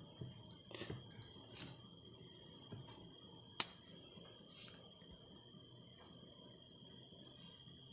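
Steady high-pitched insect chorus, with a few sharp snaps, the loudest about halfway through.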